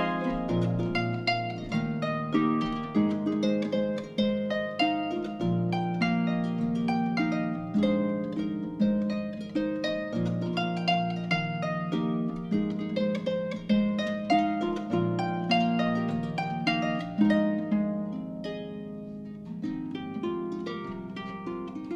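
Solo harp playing a flowing melody of plucked notes that ring and fade over lower bass notes, softening briefly a little before the end.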